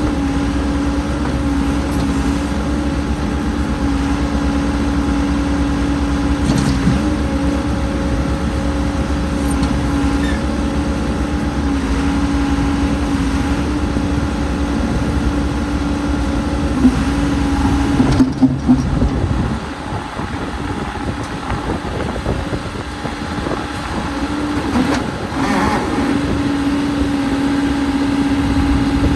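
Cat 416C backhoe's diesel engine running steadily. A few knocks come about two-thirds of the way in, after which the deep low rumble drops away while the engine keeps running.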